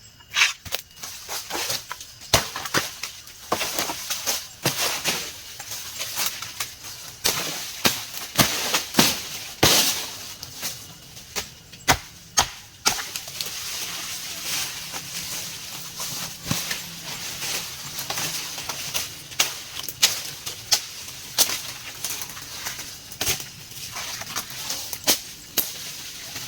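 A long run of irregular sharp knocks and snaps, a few every second, over a steady rustling hiss.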